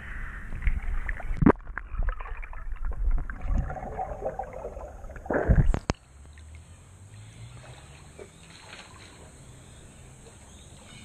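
Swimming-pool water sloshing and splashing right at the camera, with a couple of sharp knocks. About six seconds in it drops suddenly to a quieter, steady wash of water.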